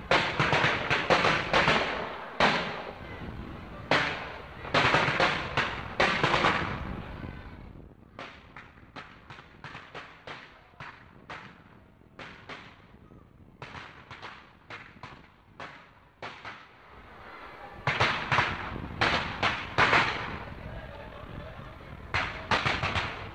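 Fireworks finale: rapid volleys of aerial shell bursts, thickest in the first seven seconds and again from about eighteen to twenty-one seconds, with a sparser run of single pops between.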